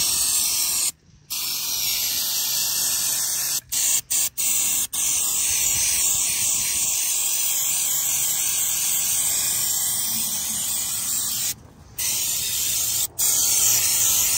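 Aerosol can of non-chlorinated brake parts cleaner spraying in long hissing blasts, stopped by short breaks about a second in, several quick ones around four seconds and a longer one near twelve seconds.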